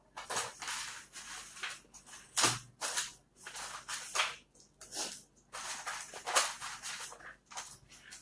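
Rummaging among small objects on a desk while pens are picked out: irregular rustling and clicking, with the sharpest knock about two and a half seconds in.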